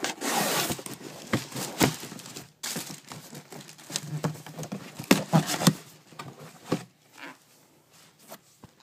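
Paper crinkling and rustling in irregular bursts, with a few sharp handling clicks, as the wrapping inside a sneaker box is pulled open; it dies down after about seven seconds.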